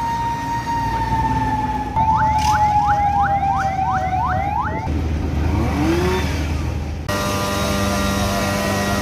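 Fire truck siren sounding a slow wail, then switching about two seconds in to a fast yelp of about three sweeps a second. Near the middle the siren stops and a low rumble takes over, followed near the end by steady humming tones.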